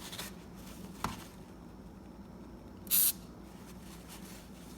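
One short burst of spray lubricant hissing from an aerosol can onto a garage door hinge, about three seconds in, with a small click about a second in.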